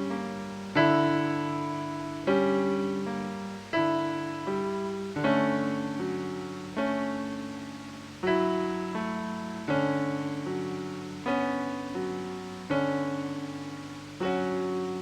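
Ambient piano music: chords struck about every one and a half seconds in an even, slow rhythm, each ringing out and fading before the next.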